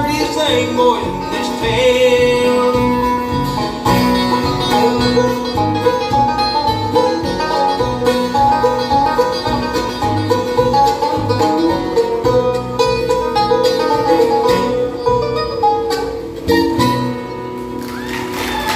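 A bluegrass band playing live: fast banjo picking over acoustic guitar and upright bass.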